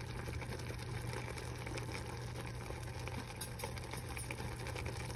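Beef and spinach simmering in water in a stainless steel pot: a steady bubbling and sizzling hiss over a steady low hum.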